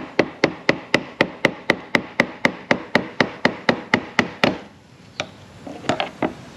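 Fast, even hammer taps, about four a second, driving round the stuck fuel pump retaining ring on a 1999 Jeep Wrangler TJ's fuel tank to loosen it. The tapping stops about four and a half seconds in, followed by a few lighter knocks.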